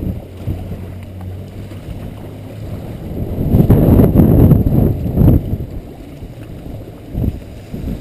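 Typhoon wind buffeting the camera's microphone, with the swish of shallow floodwater underneath. A louder gust comes in about three and a half seconds in and eases off after about five seconds.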